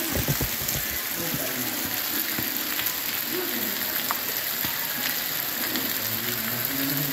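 Heavy rain falling on brick paving, a steady hiss with scattered sharp drip clicks. There are a few low bumps on the microphone in the first second.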